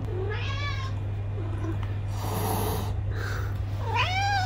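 A domestic cat meowing twice: a short call about half a second in and a longer one near the end that rises then falls. The cat is begging for raw fish.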